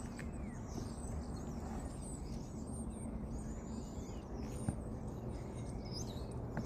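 Quiet outdoor background with faint bird chirps over a steady low hum, and one small tick a little past halfway.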